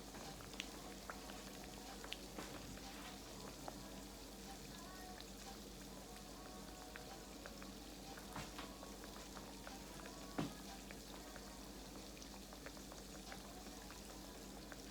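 Croquettes frying in grease on low heat: a faint, steady sizzle with scattered small pops and one louder pop about ten seconds in. The heat is too low for a strong fry.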